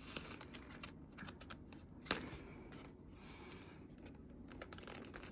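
Faint crinkling and light taps of clear plastic binder pocket pages as a photocard is slid into a pocket, with a slightly louder click about two seconds in.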